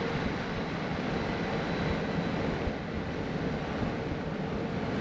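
A vehicle on the move: a steady low rumble of engine and road noise, with wind.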